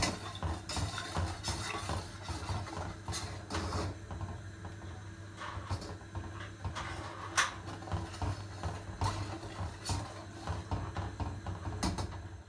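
Kitchen utensils and dishes clinking and knocking, scattered irregular clinks over a low steady hum.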